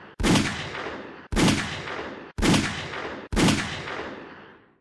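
Four shots from a 9mm pocket pistol with a roughly 3-inch barrel, firing 147-grain Remington Golden Saber hollowpoints at about 920–980 fps, about a second apart. Each shot has a trailing echo that is cut off short when the next shot begins, and the last echo fades out near the end.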